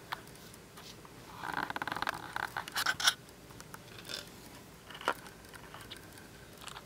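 Beadwork handling sounds: thread pulled taut through seed beads in a rasp of rapid fine ticks about a second and a half in, followed by a few light clicks of the needle and beads.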